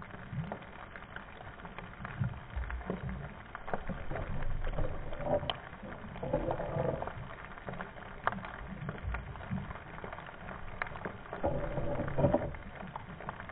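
Muffled underwater noise picked up by a GoPro lowered to the seafloor: a low rumble with scattered sharp clicks and knocks, louder for a moment about halfway through and again near the end.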